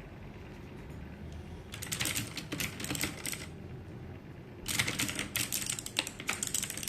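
Royal Kludge RK84 mechanical keyboard with clicky blue switches being typed on: a rapid run of key clicks about two seconds in, a short pause, then a second run from about five seconds in.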